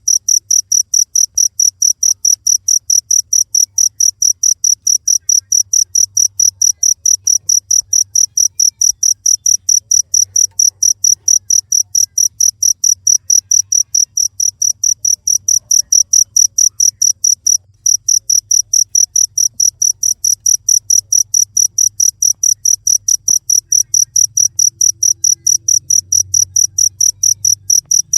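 Cricket chirping: a steady, fast train of high-pitched chirps, about four a second, with one brief break about two-thirds of the way through.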